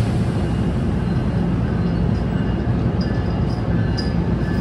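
NJ Transit bilevel commuter train standing at the platform close by, giving off a steady hum over an even rushing noise, with a few faint ticks near the end.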